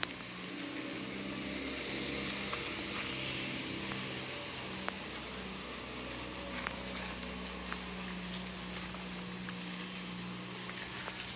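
Water running from a garden hose onto soil at the base of a fig tree, as an even hiss, over a steady low motor hum. A few faint clicks.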